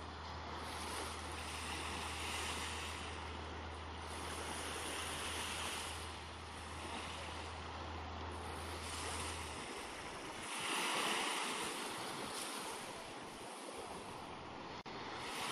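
Small waves washing up on a sandy shore, swelling and fading every few seconds. A steady low hum runs underneath and stops about two-thirds of the way through.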